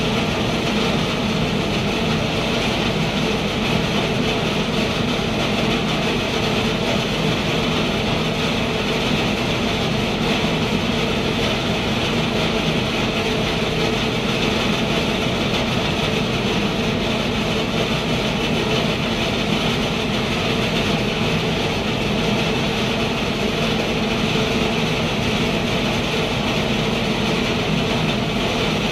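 Vertical wood flour grinding mill and its cyclone blower running steadily, an even mechanical hum with hiss that holds constant throughout.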